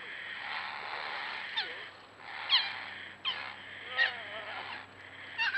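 An animal giving about five short calls, each dropping sharply in pitch, spaced roughly a second apart over a steady hiss.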